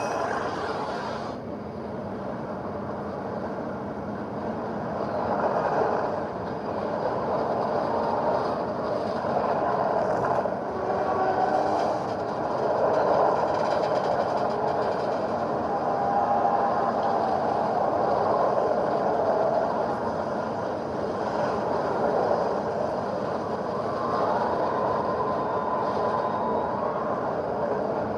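Tornado sound effect from the film Twister: a continuous rushing roar of wind that swells and eases every few seconds, with faint wavering tones over it. A higher hiss drops away about a second in.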